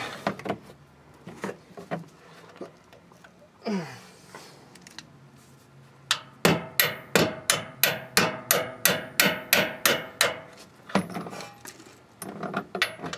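A rapid run of about fifteen metal-on-metal strikes, three or four a second, each ringing briefly, from a tool being beaten against the front brake hardware of a 1996 Ford F-250. Lighter tool clicks and knocks come before and after.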